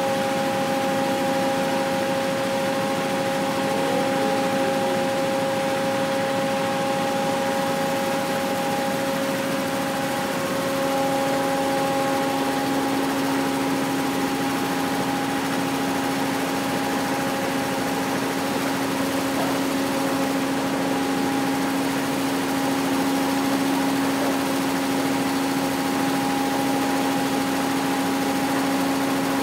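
Kubota single-cylinder diesel engine running steadily, driving the spinning drums of an abaca decorticating machine, a constant hum of several pitches. One of the tones drops out about twelve seconds in while the rest run on unchanged.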